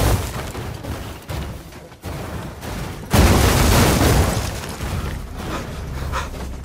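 Booms and crashes of an attack on a corrugated metal barn, film sound effects. A loud rumble fades over the first two seconds, then a sudden loud boom comes about three seconds in and dies away.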